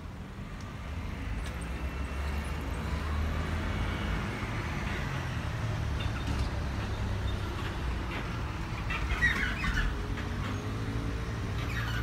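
Steady low rumble of passing vehicles, with a whine that slides upward in pitch in the first few seconds and another rising motor tone near the end. A cluster of short high chirps comes about nine seconds in.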